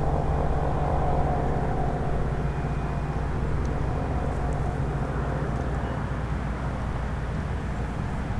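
ACA P-50 electromechanical outdoor warning siren sounding a steady tone, over a constant low rumble. The tone is strongest in the first second, then weaker, swelling a little again midway as the rotating horn turns.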